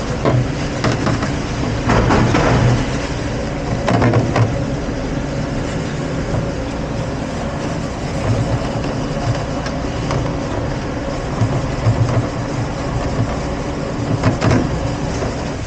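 Commercial dishwashing machine running with a steady low hum and noise, with a few brief louder rattles about two, four and fourteen seconds in.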